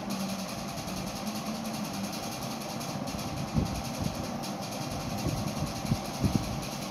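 Hands handling a GAN 356M speed cube and its velvet pouch, making rustling and a few short dull knocks, over a steady background hum.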